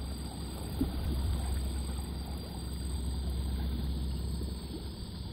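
Steady low rumble and water wash from a pedal-driven kayak under way on calm water, with a light knock about a second in.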